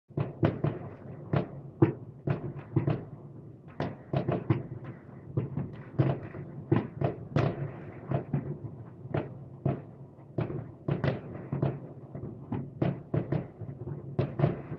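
Fireworks salute: a rapid, irregular string of sharp bangs, several a second, each with a short echoing tail.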